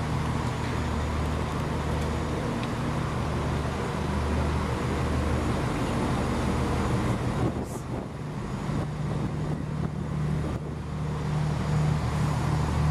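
Diesel passenger train idling: a steady low engine hum that holds throughout, with a brief drop in level about eight seconds in.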